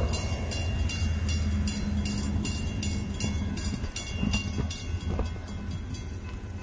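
Railroad grade-crossing warning bells ringing at a steady pace of about three strikes a second, over a steady low rumble. The crossing is activated with the gates lowering: the warning for an approaching train.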